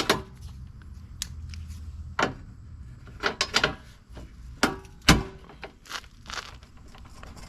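Pliers clicking and knocking against a bent metal part as it is bent back by hand: a string of separate sharp clicks, with one heavier thump about five seconds in.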